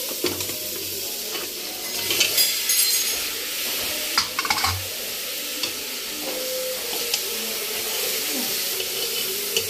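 Cut eggplant and potato pieces stirred with a ladle in hot oil and spices in a pressure cooker pot: a steady sizzle, with clattering scrapes of the ladle against the pot about two and four seconds in.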